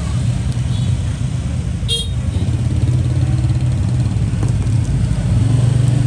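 Steady rumble of road traffic with motorbikes, and one sharp metallic click with a brief high ring about two seconds in.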